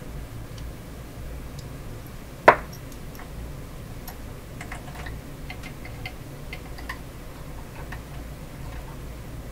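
Small metal clicks and taps of hand tools and parts being handled while a tape recorder is taken apart, with one sharp knock about two and a half seconds in and scattered light ticks after it, over a low steady hum.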